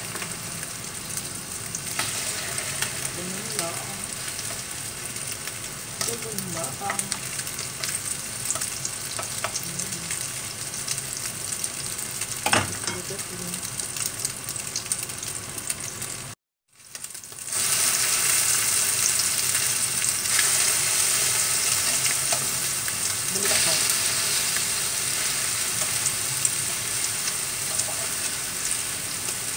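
Tortang dilis fritters (anchovies, bean sprouts and egg batter) sizzling steadily in hot oil in a frying pan, with a few small clicks and one sharp knock a little before halfway. The sound cuts out for a moment just past halfway, then the sizzling comes back louder.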